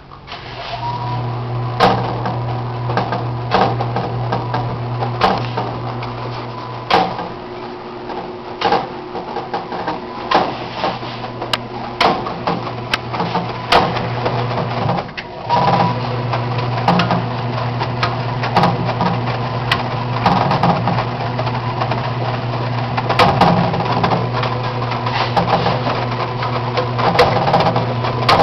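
Enxuta washing machine running its first wash after seven and a half years unused: a steady motor hum with a knock about every second and a half or so. The motor stops about halfway through and starts again a moment later.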